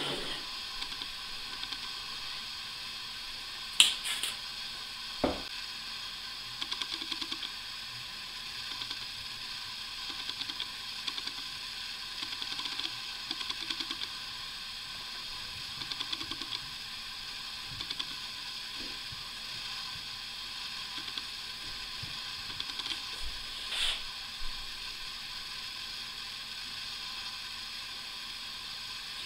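Small handling sounds of glue-up work on a wooden workbench: scattered light clicks and a few sharp knocks, the loudest about four seconds in, over a steady hiss.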